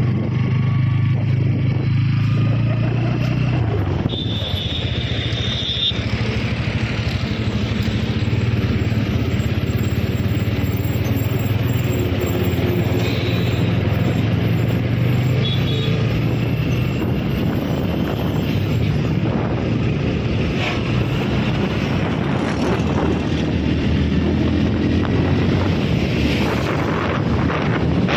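Bajaj Pulsar P150's single-cylinder engine running steadily as the bike pulls away and rides along the road, heard from the rider's seat over a haze of road and wind noise.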